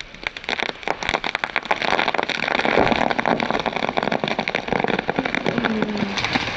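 A chainsaw-felled tree's hinge wood cracking and popping in a rapid run of snaps as the trunk tips over on its cut. The crackling builds louder over the first couple of seconds and keeps going as the tree leans further.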